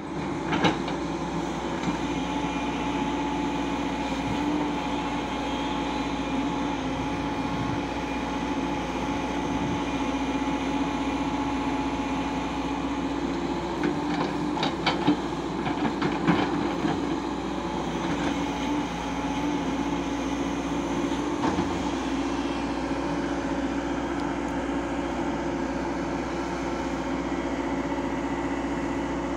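Diesel engine of a Hyundai 140 hydraulic excavator running steadily under working load while it digs and swings soil into a tipper truck, with a few short sharp knocks about halfway through.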